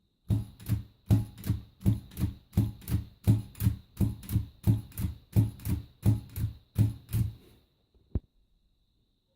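Empire thrust-action typewriter being typed on: about twenty keystrokes at an even pace of roughly three a second, each typebar thrusting forward onto the platen, then a single sharp click about eight seconds in.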